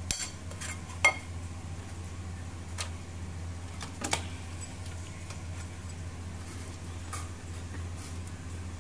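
A metal spoon clinks a few times against the bowl in thick yogurt marinade paste, as short separate taps several seconds apart, over a steady low hum.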